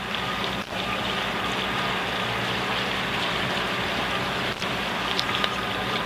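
Catamaran's engine running steadily under motor, under an even rushing hiss of wind and water.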